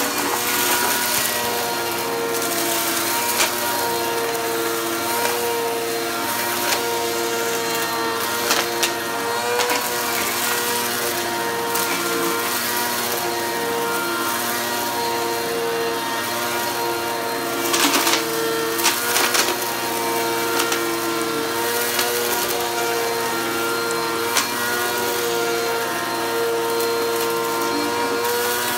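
Upright bagless vacuum cleaner running over a shag rug: a steady motor whine that wavers slightly as it is pushed back and forth. Sharp clicks and rattles come now and then as bits of confetti and sequins are sucked up, with a cluster of them about two-thirds through.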